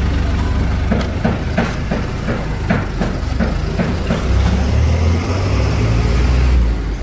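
An engine running with a steady low rumble, with a series of regular knocks about two to three a second in the middle.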